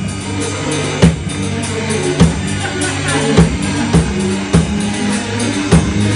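Live rock band playing: electric guitars holding heavy low chords with drum-kit hits landing roughly once a second.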